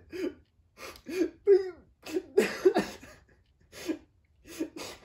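A man sobbing: a string of short, broken cries that fall in pitch, with noisy breaths between them.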